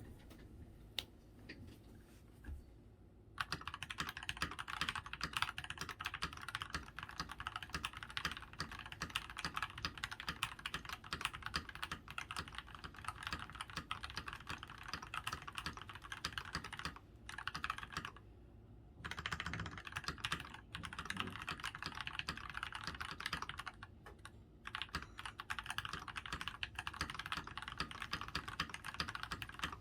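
Fast typing on a RAMA Kara mechanical keyboard with an aluminium plate, lubed and filmed milky top Tealios linear switches and GMK keycaps. A few lone keystrokes come first, then a dense, continuous run of key clicks with a couple of brief pauses.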